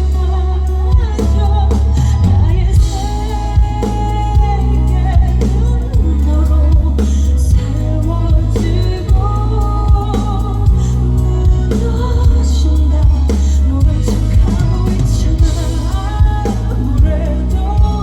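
Live band performance with a female vocalist singing over drums and a heavy, booming bass line.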